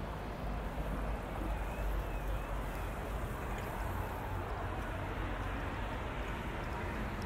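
Steady outdoor ambience of a waterfront promenade: a continuous low rumble under an even wash of noise, with no single event standing out.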